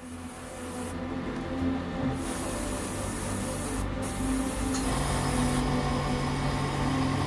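Airbrush spraying paint in bursts of hiss. The spray stops about a second in, resumes about two seconds in, and cuts out briefly near four seconds, over background music with held notes.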